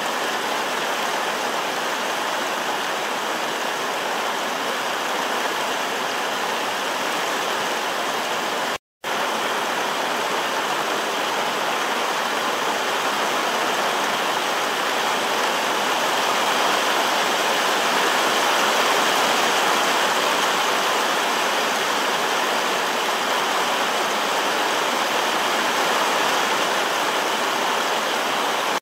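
Steady rain falling on leaves and branches, an even hiss throughout. It cuts out for a moment about nine seconds in.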